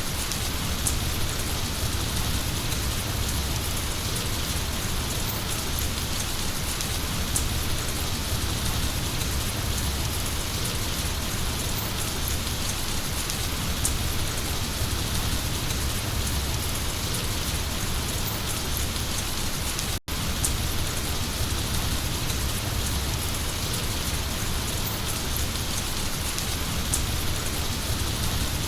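Heavy rain falling steadily on a surface, a dense even hiss with a deep low rumble beneath. The sound cuts out for a split second about two-thirds of the way through.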